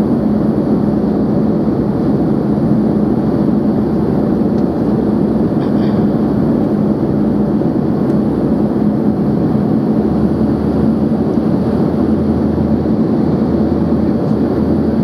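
Cabin noise inside an Embraer ERJ-145XR regional jet on approach: a steady rush of airflow with the hum of its two rear-mounted Rolls-Royce AE 3007 turbofans. A lower hum joins about ten seconds in.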